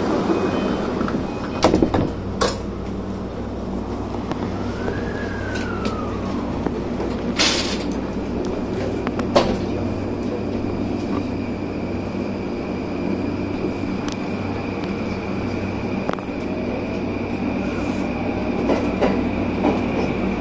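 Commuter electric train standing at a station platform, its onboard equipment giving a steady low hum. A few sharp clicks come about two seconds in, and a short loud hiss about seven seconds in.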